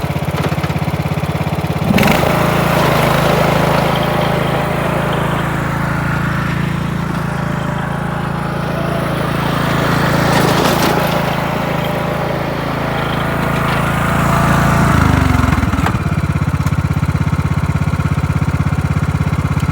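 Riding lawn mower engine idling, then throttled up about two seconds in and held at a steady higher speed. Near the end it winds back down to idle.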